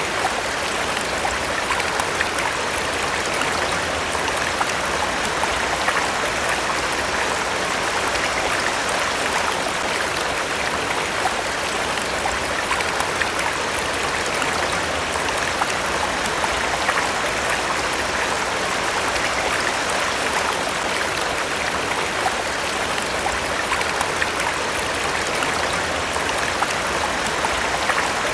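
Running water flowing steadily, like a stream, with an even rushing sound and small brief splashes throughout.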